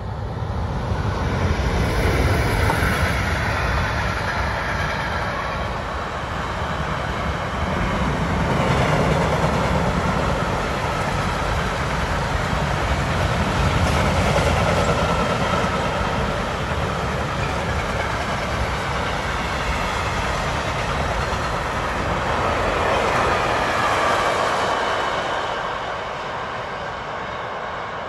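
Long freight train of tank and hopper wagons passing close by behind two ÖBB electric locomotives: steady noise of wheels running on the rails, swelling and easing in waves as the wagons go by, and dropping somewhat near the end as the train draws away.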